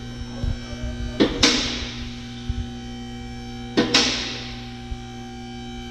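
Two-post car lift's electric hydraulic pump motor humming steadily as it raises a car, with two sudden loud clanks, about a second and a half in and near four seconds, each ringing out as it fades.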